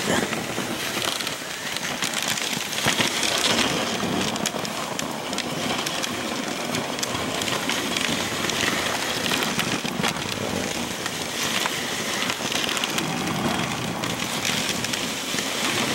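Dog sled gliding over a packed-snow trail: a steady hiss and crunch of the runners on the snow, with many small crackles.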